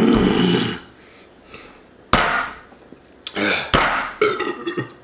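A man belches loudly at the very start, for about two-thirds of a second, from the gas of a 2-liter bottle of carbonated soda he has been drinking. A sudden sound comes about two seconds in, and short mumbled vocal sounds fill the last two seconds.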